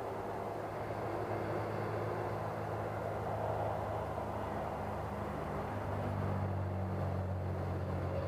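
Scale radial-engine rumble from the RC T-28 model's onboard MrRcsound sound system, running steadily at low throttle, with a change in pitch about six seconds in.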